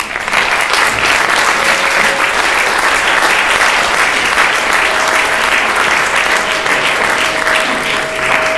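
Audience applauding steadily, with a thin steady tone sounding briefly about two seconds in and again through the second half.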